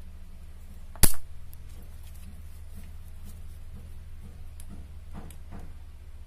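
A single sharp clack about a second in, a hard object knocked or set down on a tiled floor, followed by a few faint small taps, over a steady low hum.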